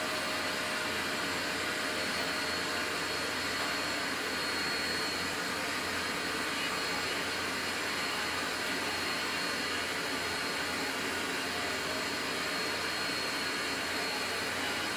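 Steady machine whir, like fan noise, with a faint high whine running through it.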